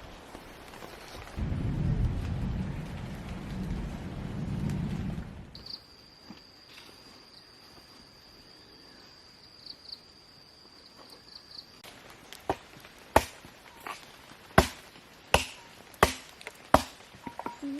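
A low rumble lasts about four seconds. Then an insect's steady high-pitched buzz runs for about six seconds. Near the end come about six sharp knocks, roughly a second apart.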